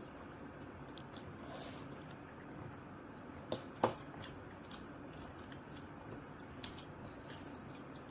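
Quiet eating at the table: forks clicking against plates of cream pasta. There are two sharp clicks close together a little past the middle and a fainter one later, over a low background.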